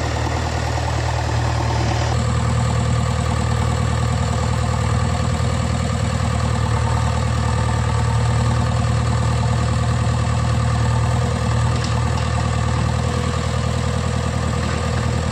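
JCB 3DX backhoe loader's diesel engine running steadily while the backhoe arm is worked. Its note changes and grows slightly louder about two seconds in.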